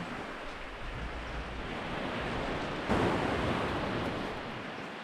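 Waves washing onto a beach, one swelling and breaking louder about three seconds in.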